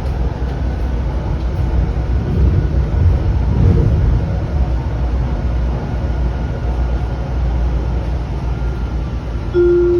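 Link light-rail train running along the track, a steady low rumble heard from inside the car, swelling slightly a few seconds in. Near the end a steady tone begins.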